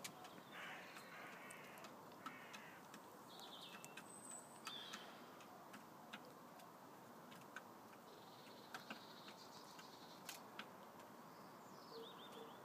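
Near silence in a chicken run: faint scattered sharp clicks and ticks, with a few soft, high chirps from the chickens.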